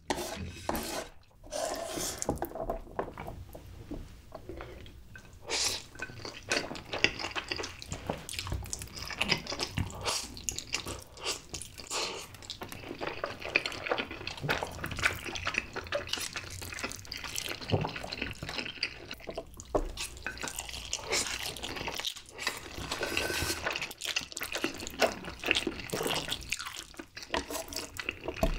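Close-miked eating of sauce-coated stir-fried instant noodles: wet slurping, chewing and sticky smacking, with chopsticks lifting and stirring the noodles, as a continuous run of small wet clicks and smacks.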